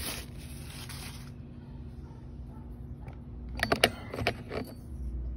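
Rustling rub of a wipe across the oily chainsaw bar and sprocket housing, then a quick cluster of sharp clicks and clinks as the saw's bar and chain are handled.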